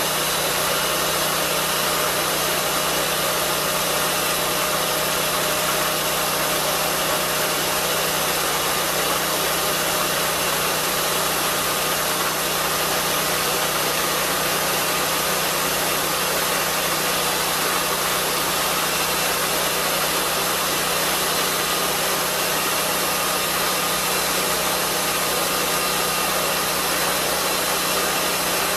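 Lucas swingblade sawmill running steadily, its engine driving the circular blade as it saws lengthwise through a log. It is one continuous, even machine noise with no changes in pitch or load.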